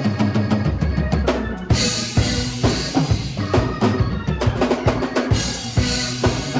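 Drum kit played in a band jam: rapid snare, bass drum and cymbal hits, over steady held low notes from an accompanying instrument.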